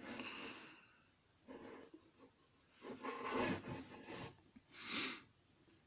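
Quiet rubbing and scraping of a homemade steel lathe chisel being handled against wood, in four short scrapes spread across a few seconds.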